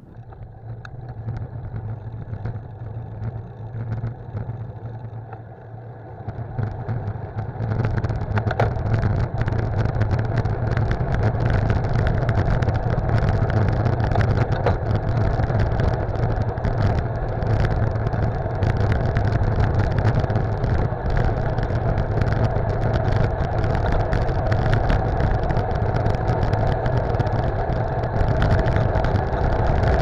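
Wind rushing over the microphone of a camera mounted on a road bike's handlebars, with tyre and road noise as the bike rolls along asphalt. It builds over the first several seconds as the bike gathers speed, then stays steady.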